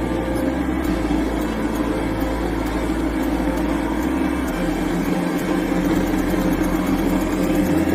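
Naza Blade (Hyosung-built) motorcycle engine running steadily, its low pitch stepping down about four and a half seconds in.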